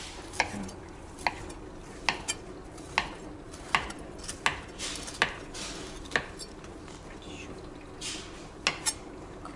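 Chef's knife chopping sponge cake into cubes, the blade tapping sharply on the cutting board roughly every three-quarters of a second, with soft scraping between cuts. The taps pause for about two seconds near the end, then come twice in quick succession.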